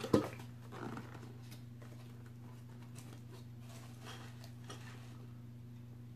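Small cardboard box being opened by hand: a sharp knock just after the start, then faint rubbing and scraping of cardboard flaps, over a steady low hum.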